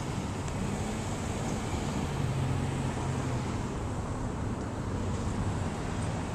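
Steady rumble of road traffic at a street crossing, with wind buffeting the microphone; a low vehicle hum swells a little in the middle.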